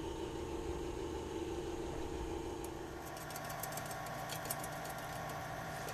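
Steady low background hum, with light scattered clicks and taps from about three seconds in as hands handle parts on a paramotor frame.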